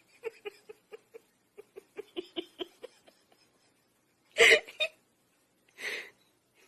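A person giggling in quick short bursts, then louder outbursts of laughter about halfway through and a breathy laugh near the end.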